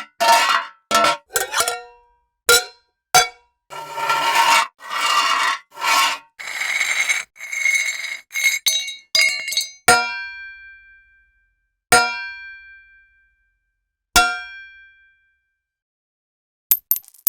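A string of separate short metallic sound effects with silent gaps between them. Quick clanks and longer scraping rubs come first, then three single ringing metal strikes about two seconds apart, each ringing out. A fast clatter of small clicks starts just before the end.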